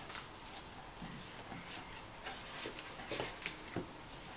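Handling noise from unboxing a phone: soft paper rustling and a few light clicks and knocks, clustered near the middle and end, as the paper inserts and the phone are handled.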